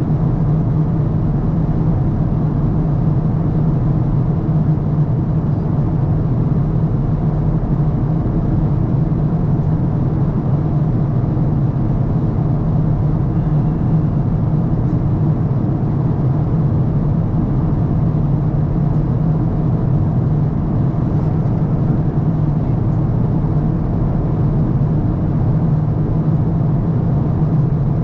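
Steady airliner cabin noise from inside an Airbus A350-1000: engines and airflow as an even low rumble that does not change.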